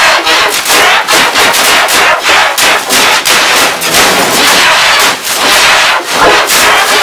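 Loud, heavily distorted meme-edit audio: a dense run of harsh crackling bursts, several a second, over a hissy wash of noise.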